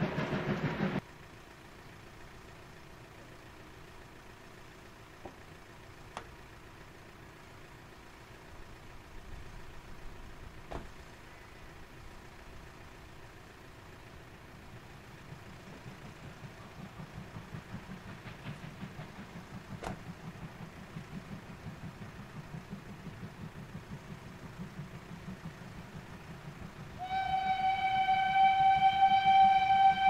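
A steam locomotive's whistle blows one long steady note from about 27 seconds in, over a quiet open-air background. In the first second, louder steam-train noise cuts off suddenly.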